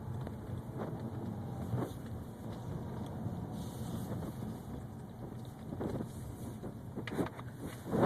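2011 BMW 328xi running with a steady low rumble and a faint thin whine above it, the whine the owner is trying to track down. A sudden loud noise comes right at the end.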